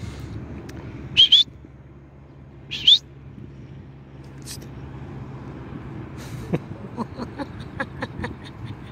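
Diesel truck engine idling steadily, its low hum running under everything. Two short, high, rising chirps stand out, a doubled one about a second in and another near three seconds. Later comes a run of light ticks.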